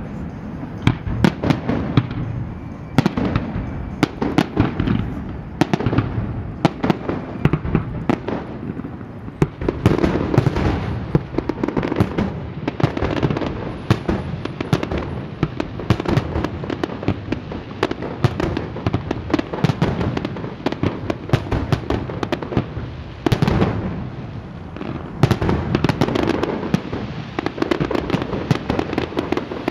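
Fireworks display: a continuous barrage of sharp bangs and crackles, several a second, with now and then a louder report standing out.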